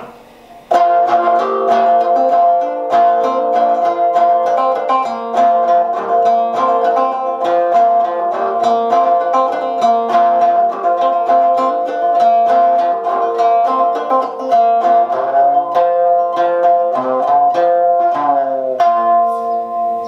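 Copper tea kettle banjo with flush frets, played through a small Honeytone mini amp with a little distortion: a fast run of plucked notes over a steady ringing note, with notes sliding in pitch near the end.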